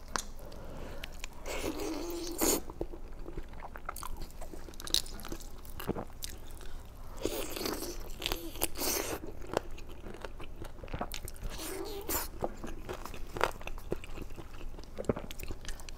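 Close-miked eating: biting into and chewing kiln-roasted chicken, with crunching in irregular bursts and wet mouth clicks between them.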